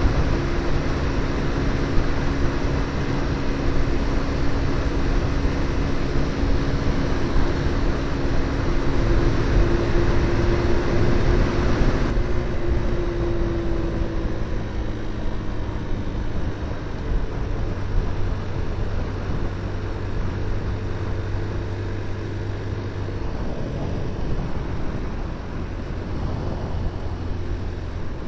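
QJ Motor SRV 125 motorcycle's engine and exhaust running steadily under way, with wind and road rush. About twelve seconds in the rush drops sharply and the engine note falls a little, as the bike slows. It then runs on at a lower, steady note.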